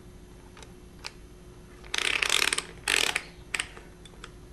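Digital multimeter's rotary selector dial being turned through several positions: a few single clicks, then two short runs of rapid clicks about two and three seconds in.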